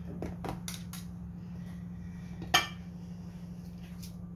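Light clinks and taps of dishes and utensils being handled, a few in the first second and one sharper clink about two and a half seconds in, over a steady low hum.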